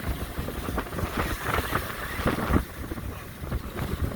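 Wind buffeting the microphone aboard a boat at sea: an uneven, gusty rumble with irregular thumps, the strongest about halfway through.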